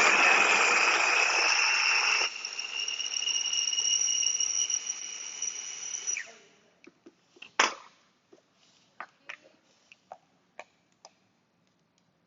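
Electric food chopper chopping carrots, its motor running with a steady high whine. It is loud and gritty for the first two seconds, then lighter as the carrots are cut fine, and it winds down with a falling whine about six seconds in. A sharp click follows near eight seconds, then a few small clicks.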